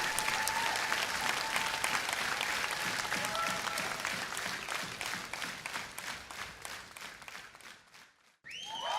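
Large audience applauding, many hands clapping together with some crowd voices at first. The applause thins and dies away, and after a brief gap a new burst of crowd cheering starts just before the end.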